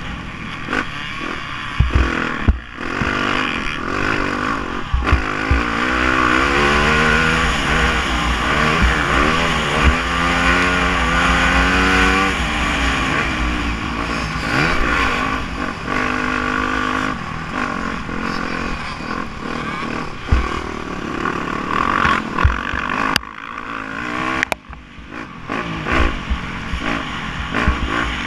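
Yamaha YZ250F four-stroke single-cylinder motocross engine, heard from on the bike, revving hard and shifting through the gears, its pitch climbing again and again. Knocks come from the bike over the rough dirt track, and the throttle is shut off briefly near the end.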